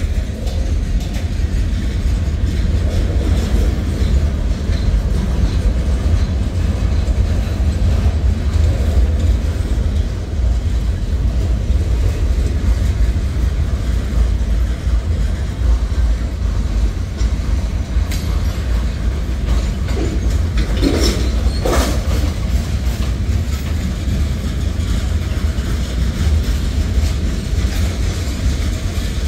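Freight cars of a Norfolk Southern manifest train rolling past: a steady rumble of steel wheels on the rails, with a brief squeal about two-thirds of the way through.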